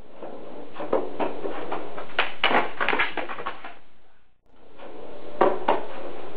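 Skateboard on a concrete driveway: wheels rolling with sharp clacks of the board's tail and trucks, and a burst of clattering clacks about two to three seconds in as the rider bails and the board gets away. The sound fades out just past the middle and fades back in on more rolling and two sharp pops.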